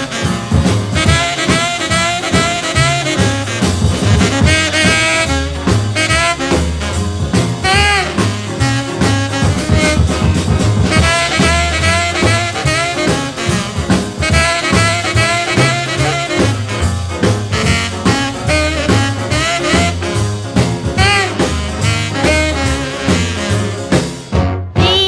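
Rhythm-and-blues record playing an instrumental passage without vocals: a melodic lead over a steady beat with bass and drums. Near the end the song stops briefly and another recording begins.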